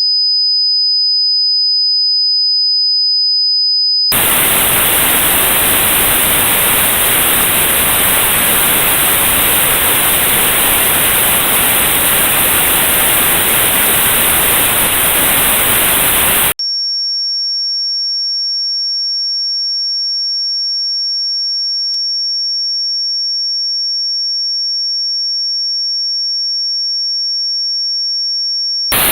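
Tinnitus-matching test sounds: a steady high-pitched pure test tone for about four seconds, then notched white noise, a hiss with a band of high frequencies cut out around the tone's pitch, for about twelve seconds, then a second pure test tone at a slightly higher pitch.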